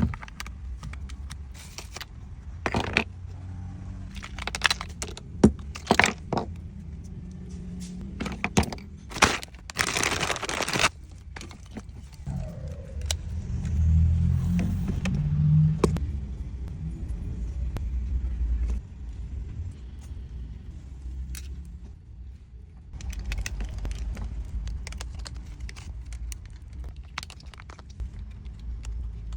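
Scattered clicks, knocks and scraping of hard plastic and metal parts being handled while a cordless drill is worked on, busiest in the first half, with a short hissing burst about ten seconds in and a low rumble behind.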